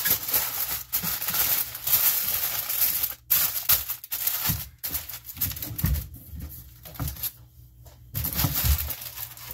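Aluminium foil crinkling and crumpling as hands fold and press it tightly around a rack of pork ribs, densest in the first three seconds, then in shorter bursts with pauses. A few soft thuds fall among them.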